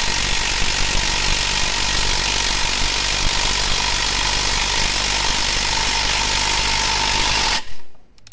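Parkside PDSSA 20-Li A1 cordless impact driver hammering steadily under heavy load as it drives a long 8 mm hex-head screw into a wooden beam, then stopping suddenly near the end as the screw seats.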